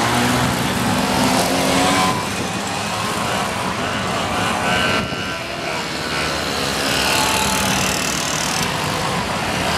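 Several vintage two-stroke mopeds riding past one after another, engines buzzing, with a rising engine note in the first two seconds.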